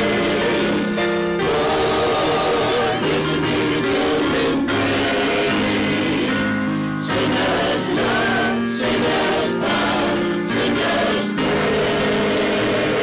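Church choir of mixed men's and women's voices singing a hymn with piano accompaniment, in sustained phrases with brief breaths between them.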